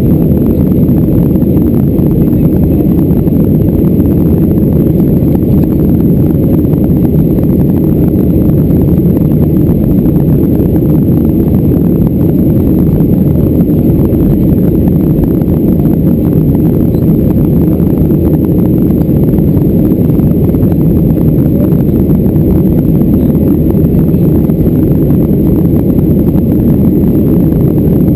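Steady cabin noise of a Boeing 737-400 climbing: the CFM56 engines and rushing air heard as one constant, muffled low rumble.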